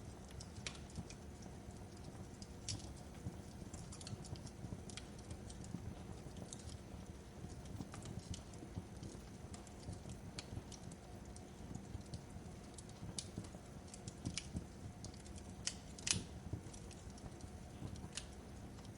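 Wood fire crackling: irregular sharp pops and snaps over a low steady rumble, with one louder pop near the end.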